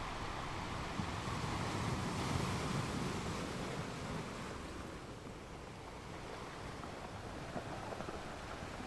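Surf and wind on a beach: a steady rushing noise that swells in the first few seconds and eases about halfway through.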